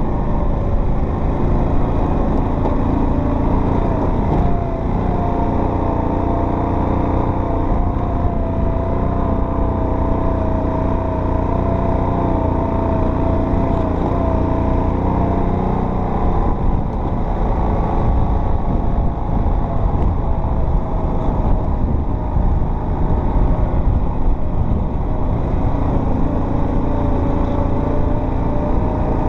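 Off-road vehicle engine running steadily while driving a trail, with a constant low rumble and its pitch wavering slightly as the throttle changes.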